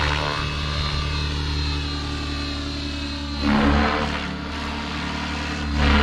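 Align T-Rex 650X electric RC helicopter in aerobatic flight: steady rotor and motor whine whose pitch drifts, with the rotor noise swelling twice, about three and a half seconds in and again near the end.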